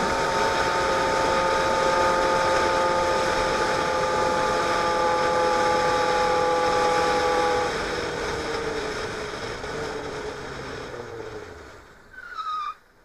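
Sport motorcycle riding at a steady speed in freeway traffic: wind rushing over the helmet camera and a steady engine whine. The whine stops about halfway through and the sound then falls off gradually as the bike eases off.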